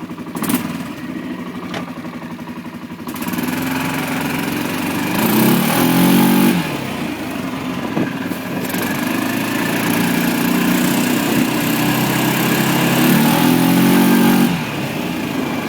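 1997 Kawasaki Prairie 400 4x4 ATV's single-cylinder four-stroke engine running under way. It picks up about three seconds in, and its pitch climbs and drops back twice, once in the middle and once near the end.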